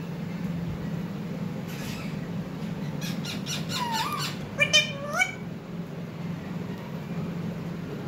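Indian ringneck parakeets giving a few short squawks and chirps that glide up in pitch, about halfway through, over a steady low hum.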